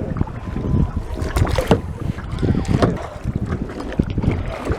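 Kayak paddle dipping and splashing in the water in repeated strokes, with wind buffeting the microphone.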